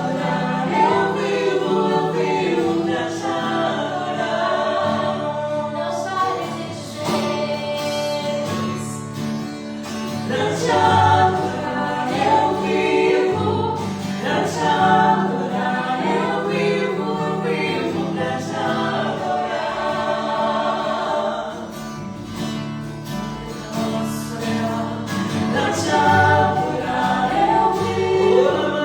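Gospel worship music: a group of voices singing together over a steady instrumental backing with guitar.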